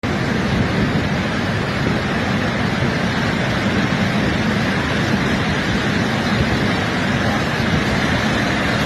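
Debris flow of rain-swollen water, mud and rock rushing down a channel: a steady, dense rushing noise with a deep low rumble and no breaks.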